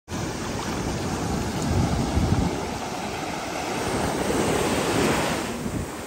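Ocean waves breaking and washing up the beach, swelling and easing, with wind rumbling on the microphone.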